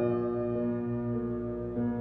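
Ambient background music: sustained chords held over a pulsing low note, with a new chord coming in shortly before the end.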